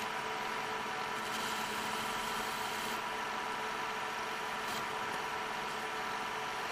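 A shop machine tool running steadily, a constant motor hum with a few fixed tones and no change in speed.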